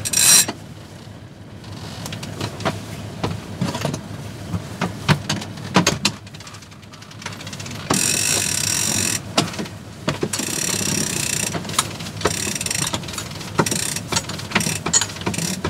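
Sailing-yacht cabin-top winch being worked on the main halyard to hoist and tension the reefed mainsail: runs of rapid ratcheting clicks from the winch pawls, twice lasting about a second, among scattered knocks and rope noise.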